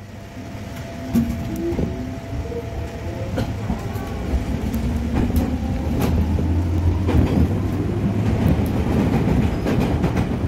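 A 205-series electric commuter train pulling away and gathering speed, heard from the rear cab: a low motor and running hum growing louder, with sharp wheel clicks over rail joints and points.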